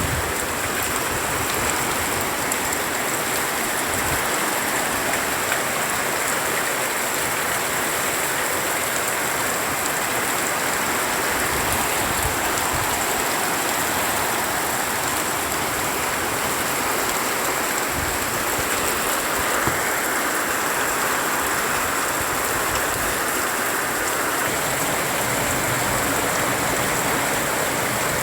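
Heavy rain pouring down, a dense steady hiss that does not let up.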